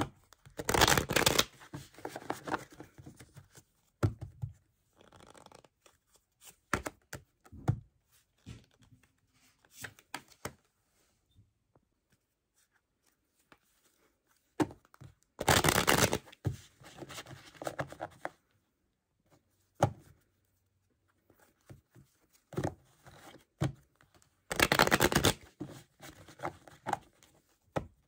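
Tarot cards being riffle-shuffled: three loud riffles, about a second in, midway and near the end, with quieter shuffling and handling of the cards between.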